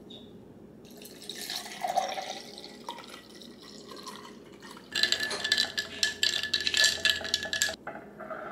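Liquid poured into a drinking glass with ice, then the drink mixed in the glass: a louder stretch of rapid crackling with a steady high whine from about five seconds in, cutting off suddenly near the end.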